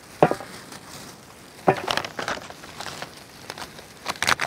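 Chocolate bar wrappers, paper and foil, crinkling and tearing as gloved hands unwrap the bars, with a few sharp clicks spread through and a busier crinkly burst near the end.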